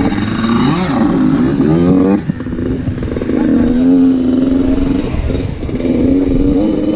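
Yamaha YZ85 two-stroke motocross engine revving as the bike pulls away: the pitch climbs, drops off about two seconds in, then climbs again and holds steady under throttle.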